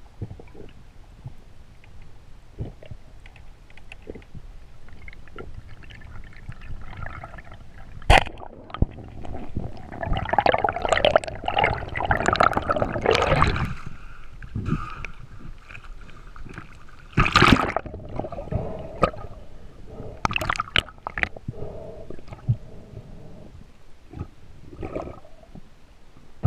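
Water sloshing and gurgling around a spearfisher's action camera as he surfaces and dives again. There is a sharp splash about eight seconds in, a longer spell of splashing from about ten to thirteen seconds, and more splashes a little later.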